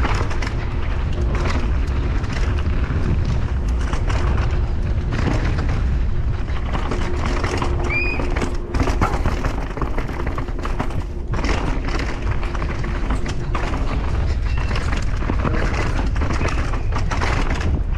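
Wind buffeting the camera microphone over a mountain bike clattering down a rough trail, with constant rattling and frequent knocks from the bike and tyres on rocks and roots. A brief high squeak about eight seconds in.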